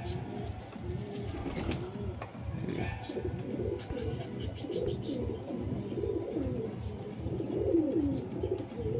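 Domestic pigeons cooing over and over in low, warbling calls, loudest a little before the end.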